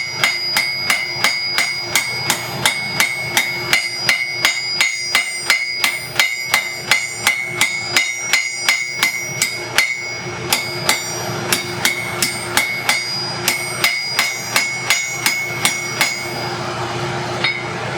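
Blacksmith's hand hammer striking a hot bar on the anvil in a steady rhythm, about two and a half ringing blows a second, rounding the stretched stock back up; the blows stop near the end. A steady low hum runs underneath.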